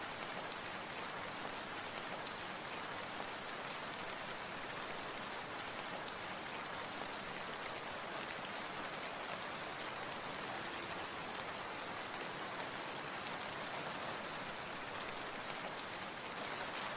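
Steady rain falling, an even hiss of many drops with no change in strength.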